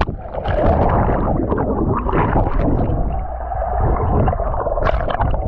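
Wave-pool water heard through a submerged GoPro: a muffled, dull churning and gurgling with the treble cut off. There is a brief brighter splash near the end.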